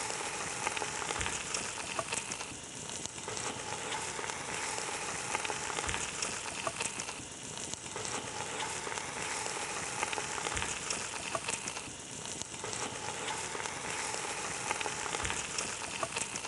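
Chicken halves searing in hot oil on chopped onions in a stainless steel pot: a steady sizzle dotted with small crackles and pops.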